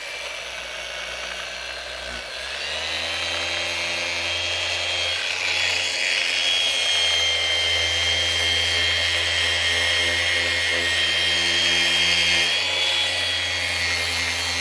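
Flex PXE 80 cordless mini sander running, dry-sanding a soft Plexiglas rear window with a 1500-grit disc. Its motor whine steps up in pitch and loudness about two to three seconds in, then holds steady.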